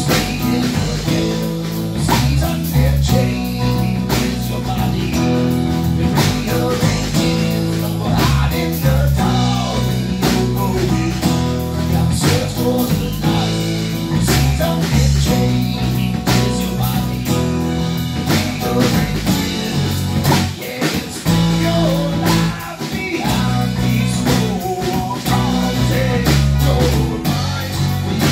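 Live rock band playing a groove: drum kit, electric bass and acoustic-electric guitar, with a soprano saxophone playing a melodic line over the top.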